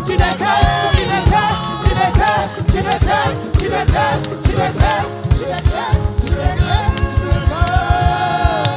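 Live gospel praise music: voices singing over a band with drums. About halfway through, the drums break into a fast, even run of beats.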